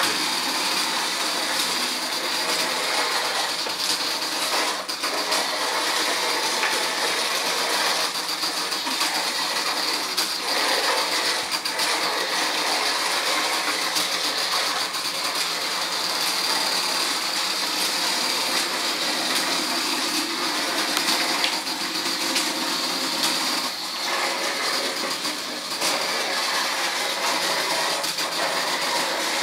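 A small homemade wheeled robot's electric drive motors and gearboxes whirring steadily as it drives and turns, with a few brief dips and faint clicks.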